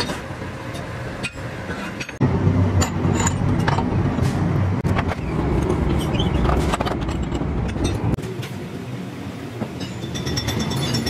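Metalworking workshop noise: machinery running with a steady rumble, broken by several sharp metal clanks and knocks.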